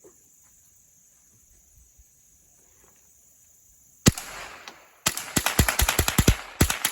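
A Ruger semi-automatic with a 25-round magazine firing outdoors: a single shot about four seconds in, then rapid fire, about five shots a second, from about a second later.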